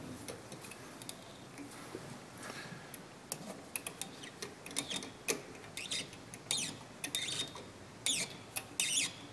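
Small M4 hand tap being turned into a brass part with a tap wrench, cutting thread: a string of short, irregular squeaks and creaks, coming more often from about three seconds in.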